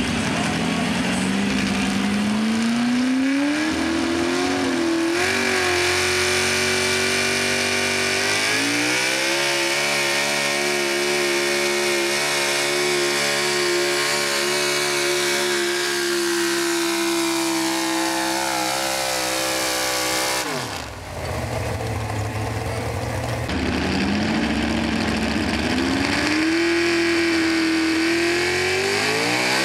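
Pro Stock four-wheel-drive pulling truck's engine on open exhaust stacks, revving up as the truck launches with the sled. It is then held at high revs for the pull, sagging slightly near the end. About twenty seconds in the sound breaks off, and a second pulling truck's engine revs up, climbing in pitch.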